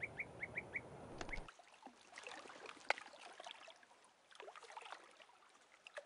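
European bee-eater calls: a quick run of short, clipped notes of one pitch, about five a second, ending about a second in. Faint scattered chirps and clicks follow.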